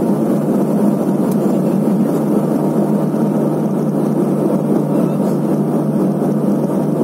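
Steady drone of the Let L-410's twin turboprop engines and propellers, heard from inside the passenger cabin as the aircraft descends on its landing approach.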